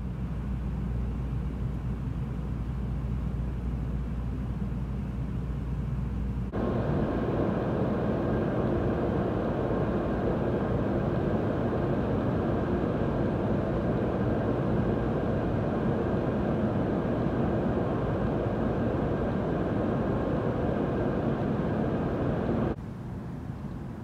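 Steady background noise of a halted Shinkansen and its station: a low hum, which cuts about six and a half seconds in to a louder, fuller rushing noise. The rushing noise stops abruptly near the end, and the low hum returns.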